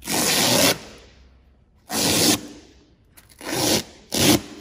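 Velcro strips ripping as their protective cover strips are peeled off a seat cushion, four rips in a row, the last one short.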